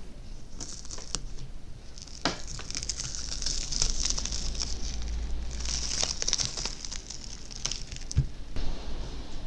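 Crinkly rustling and crackling handling noise with scattered small clicks and a low knock near the end, as materials are handled after demoulding.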